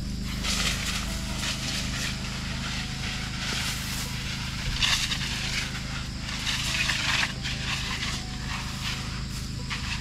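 Rustling and crunching of tall grass as a person walks through it dragging a spray hose, in irregular bursts that are loudest about five and seven seconds in. Under it runs the steady drone of an orchard power sprayer's engine and pump.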